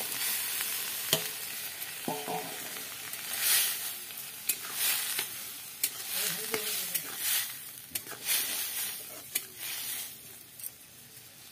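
Boiled potato and fried crab pieces tipped into hot oil and masala in a steel karahi, sizzling, then stirred with a steel ladle. The sizzling swells with each stir, and the ladle clinks against the pan now and then. It dies down near the end.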